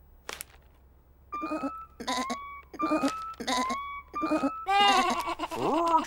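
Cartoon lamb bleating: a string of about five short bleats, then a louder, longer bleat near the end. A short click comes about a third of a second in.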